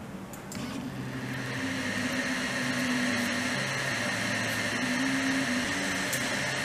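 ORTUR Laser Master 2 diode laser engraver at work with its Y-axis rotary roller: the stepper motors whine in low tones that jump between a few pitches as the head and roller move, over a steady whir from the machine that builds up over the first couple of seconds.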